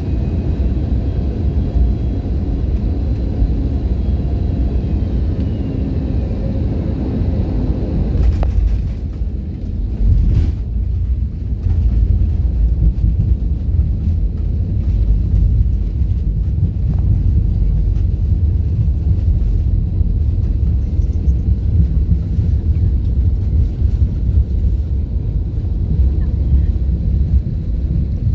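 Airliner cabin rumble after landing, a steady low rumble. A higher engine tone drops away about eight seconds in.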